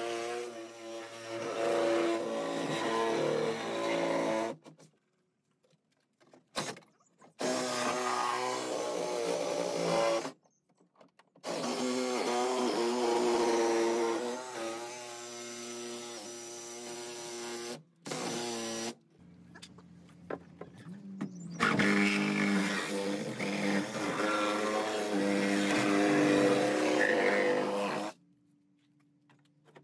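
Cordless reciprocating saw cutting through the wooden hull of a sailing dinghy. It runs in several bursts of a few seconds each and stops briefly between them, its whine wavering as it cuts.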